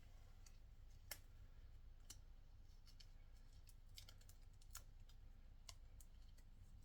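Near silence broken by about half a dozen faint, scattered clicks from small ties being fastened around an air hose and cable, the clearest about a second in, over a low steady hum.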